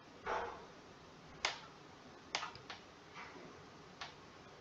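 A handful of sharp, separate clicks from a computer keyboard, about five spread irregularly, with a soft brief rustle just after the start.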